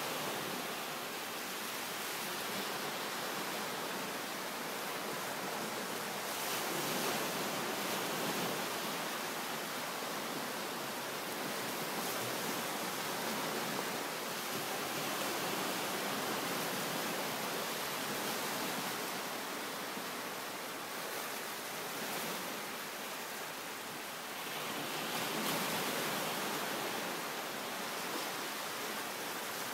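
Small waves breaking gently and washing up on a sandy beach: a steady surf hiss that swells and falls back every several seconds.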